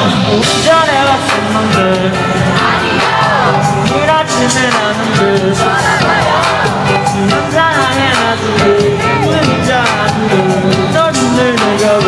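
Loud amplified live concert music over the PA, a K-pop/hip-hop track with a steady beat and a voice singing a gliding melody, recorded from within the audience.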